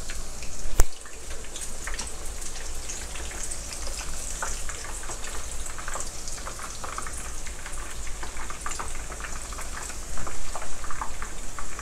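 Batter-coated water spinach leaves deep-frying in hot palm oil: a dense, steady crackle of sizzling oil. There is one sharp click just under a second in, and the crackling grows louder near the end.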